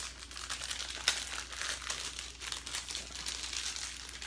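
Plastic wrapper of a rolled refrigerated pie crust crinkling as it is handled and unwrapped: a run of crackles, with one sharper crackle about a second in.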